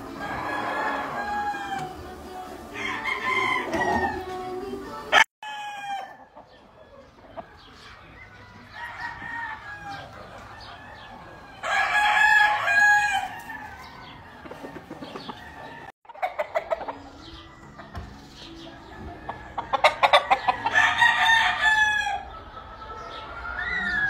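Gamefowl roosters crowing, several separate crows one after another, the loudest about halfway through and near the end.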